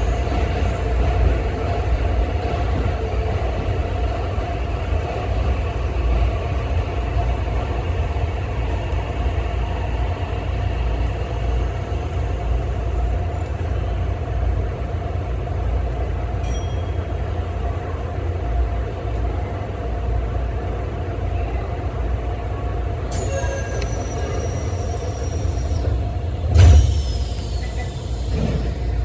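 Shin-Keisei electric train heard from inside the leading car: a steady low rumble with a constant hum. From about two-thirds of the way through, high whines fall in pitch, and a short loud burst comes near the end.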